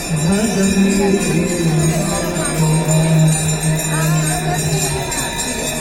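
Music with jingling bells over a long held low sung note.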